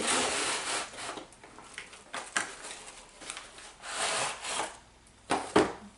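Cardboard box and plastic packaging of a curling iron being handled and rubbed, rustling and scraping in bursts, with a sharp knock a little before the end.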